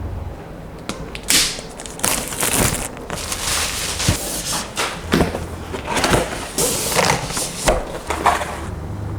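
Keyboard packaging being handled during unboxing: irregular sliding, rustling and scraping with a few sharp knocks.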